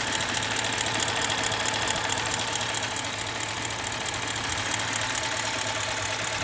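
Audi A8 4.0 TFSI twin-turbo V8 running steadily at idle, with a fast, even ticking over the engine note: the strange sound the owner is trying to pin down.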